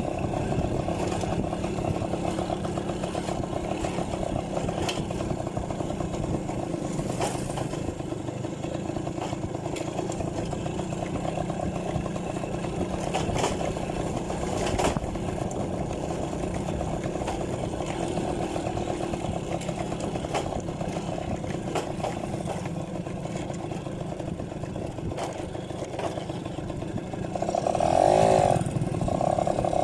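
Yamaha V50's small two-stroke single-cylinder engine running steadily under way, with scattered light clicks. The engine revs up and gets louder near the end.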